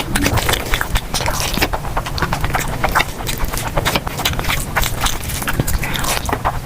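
Eating sounds picked up close to the mouth: chewing and lip smacking, a dense, irregular run of wet clicks.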